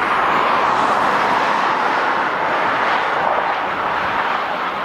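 Jet airliner engines passing close by, a loud steady rush of engine noise that eases slightly toward the end.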